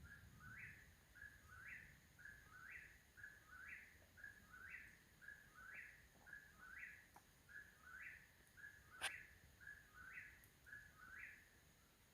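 A bird calling the same phrase over and over, faint, about once a second: a short low note and then a note that rises at the end. There is one sharp click about nine seconds in.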